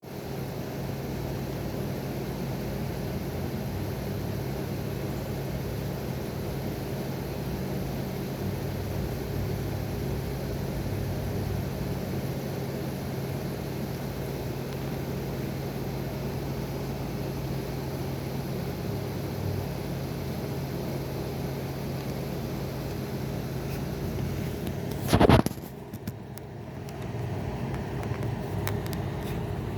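A steady low hum with hiss, broken about 25 seconds in by one loud, sharp crack. The background then briefly drops away before the hum returns.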